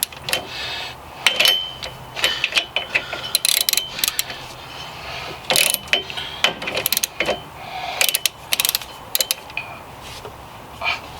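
Hand ratchet wrench clicking in short bursts of rapid clicks as it is swung back and forth on a tight hub-mounting bolt, with metallic clinks between strokes.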